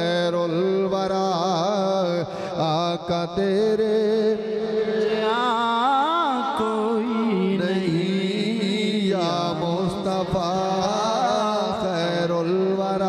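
A man's voice chanting an Islamic devotional recitation in a wavering, melodic line over a steady lower held note.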